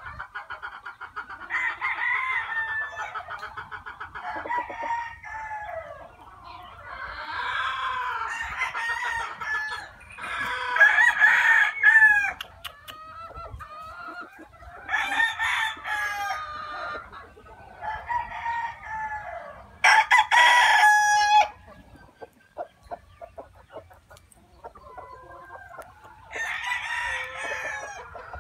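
Gamefowl roosters crowing again and again, about eight crows of one to three seconds each, some running into one another, the loudest about twenty seconds in.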